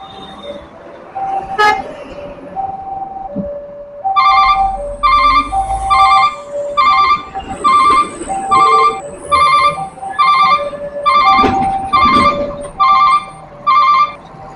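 A tronton truck's telolet horn sounds in a run of short, loud blasts of one pitch, about one a second, starting about four seconds in and stopping near the end. Under it the railway crossing's warning signal alternates between two tones.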